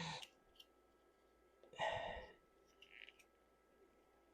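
Mostly quiet, with one short breathy exhale, like a sigh, about two seconds in and a few faint light clicks a second later.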